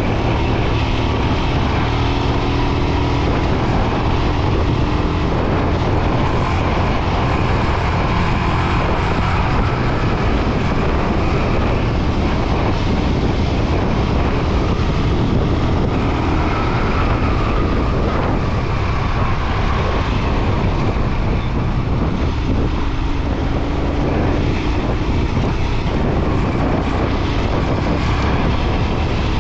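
Royal Enfield Himalayan 411's single-cylinder engine running steadily while the motorcycle is ridden, under a constant loud rushing noise.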